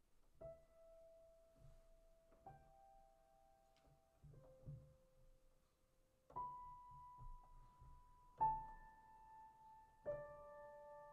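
Soft, slow piano: single notes struck about two seconds apart, each left to ring, with two notes sounded together near the end.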